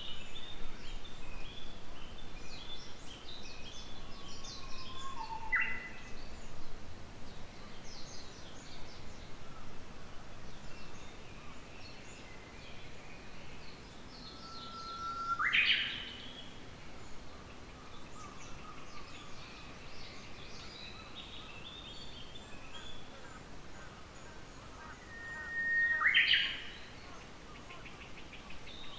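Japanese bush warbler singing its 'hoh-hokekyo' song three times, each a long held whistle that breaks into a quick rising flourish, over steady small chirping from other birds.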